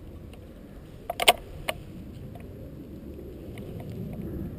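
Low rumble of wind on the microphone of a camera mounted on an airsoft rifle. A little over a second in come three sharp clicks, the middle one loudest.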